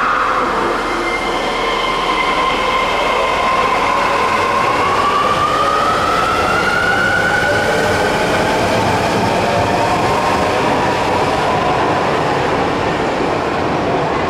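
Midosuji Line subway train moving along the platform, its electric traction motors whining over the rumble of wheels on rail. The whine falls in pitch at the start, holds, then rises around the middle and levels off.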